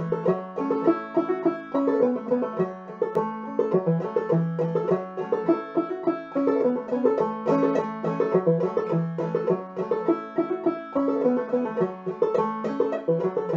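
Banjo played clawhammer style: an old-time tune in the key of A, played solo with a steady, even rhythm of plucked notes.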